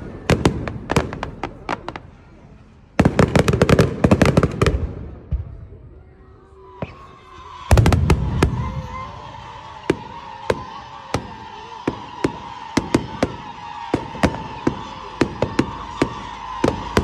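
Fireworks going off: repeated sharp bangs and cracks, with two dense volleys of rapid crackling, one a few seconds in and one about halfway. From about halfway a steady high whistle runs under the continuing cracks.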